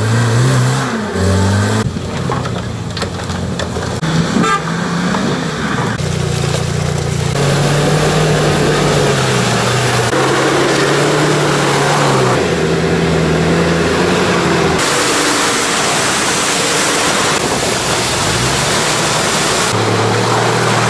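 Engines of several off-road 4x4s, a Lada Niva among them, revving and pulling through deep mud, with tyre and mud noise. The engine note rises and falls and changes abruptly every few seconds as the sound cuts from one vehicle to the next.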